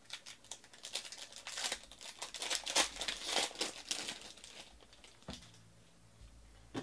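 Foil trading-card pack wrapper being torn open and crinkled by hand, a dense crackle that builds to its loudest about three seconds in. A short tap about five seconds in as the stack of cards is set down on the table.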